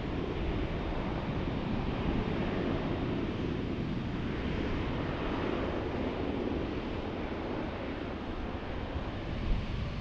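Boeing 787-9's GEnx-1B turbofan engines running at taxi power, heard at a distance as a steady rushing noise without a clear whine.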